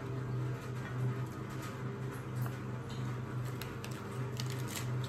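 Eating and table sounds: a few light clicks and small handling noises of hands picking at lettuce leaves and food on plates, more of them in the second half, over a steady low hum.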